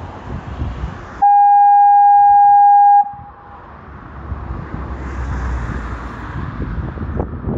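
A working foghorn sounds one steady, single-pitched blast of just under two seconds, starting about a second in and cutting off sharply. Before and after it, wind buffets the microphone.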